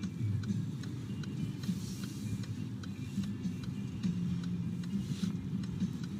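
Steady low rumble of a car running, heard from inside its cabin, with faint, evenly spaced ticks.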